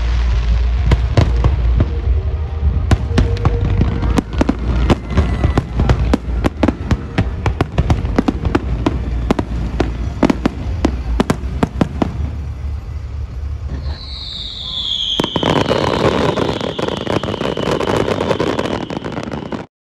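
Fireworks going off in a rapid series of sharp cracks and bangs, with low wind rumble on the microphone. Near the end a high whistle falls in pitch over a dense crackling hiss, and the sound cuts off suddenly.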